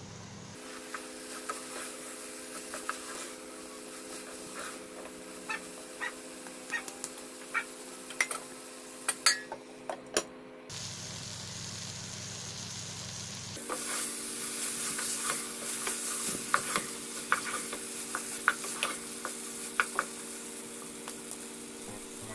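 Grated Indian gooseberries sizzling as they fry in a non-stick pan, with a spoon stirring and scraping against the pan in frequent sharp clicks. A steady low hum runs underneath.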